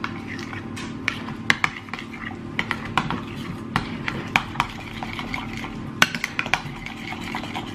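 A utensil stirring a thick mixture of crème fraîche, mustard and grated gruyère in a bowl, with irregular clinks against the bowl over a steady low hum.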